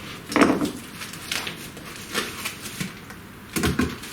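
Packaging being opened by hand: a cardboard box and the plastic tube protecting a ball screw, giving a string of irregular knocks, clicks and rustles. The loudest knock comes about half a second in, with another cluster near the end.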